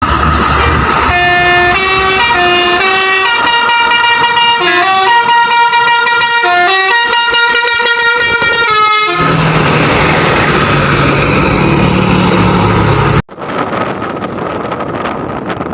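A bus's telolet multi-tone musical horn plays a melody of held notes that step up and down for about nine seconds. A loud, rough, low-pitched sound follows for about four seconds and then cuts off suddenly, leaving a quieter rushing noise.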